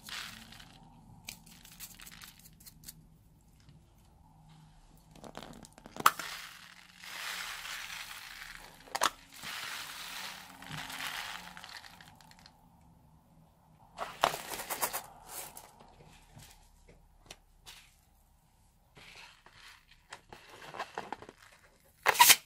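Tiny polystyrene foam beads poured from a plastic cup, pattering and hissing over rubber balloons in a clear plastic bowl, in several pours of a few seconds each with light clicks. Near the end, a sharp loud snip of scissors cutting through a balloon's knot.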